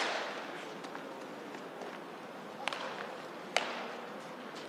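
A baseball smacking into a leather glove: one sharp, echoing pop at the start, then two smaller pops a little under three and about three and a half seconds in.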